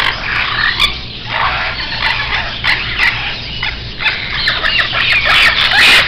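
A roomful of caged parrots and parakeets squawking and screeching, many short overlapping calls at once, with a faint steady low hum underneath.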